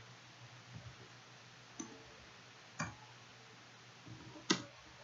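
A few separate, sharp computer mouse clicks, the loudest near the end, over a faint steady low hum.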